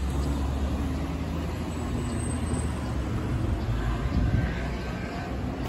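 Road traffic at a street crossing: vehicles running by with a steady low rumble.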